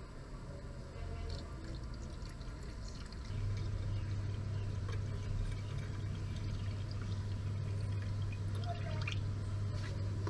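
Engine coolant poured from a plastic gallon jug into a pickup's radiator filler neck, refilling the cooling system after a radiator repair. A steady low hum comes in about three seconds in.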